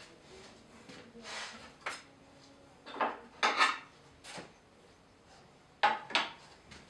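Clinks and knocks of hard metal and wooden objects being handled, in three short clusters, with no saw running.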